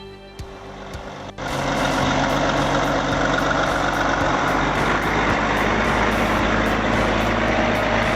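Heavy truck engine running steadily, loud, with a dense noisy rush over a low engine drone. It cuts in abruptly about a second and a half in, replacing quieter background music.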